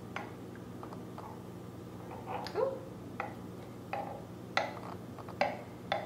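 Quiet pouring of steamed milk from a stainless steel pitcher into a glass mug, with small sharp clicks every second or so over a low steady hum.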